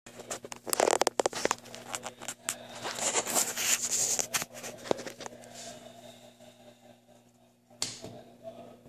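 Clicks and rustling handling noise over a faint steady hum, then a single sharp click near the end as a button on a chamber vacuum packager's control panel is pressed.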